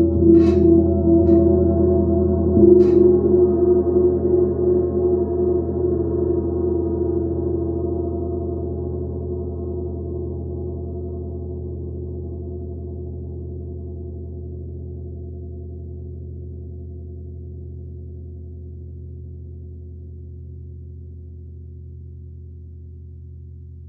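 28-inch Black Sun gong struck three times with a soft felt mallet in the first few seconds, then left to ring: a dense, wavering hum of many overtones that fades slowly and is still sounding at the end.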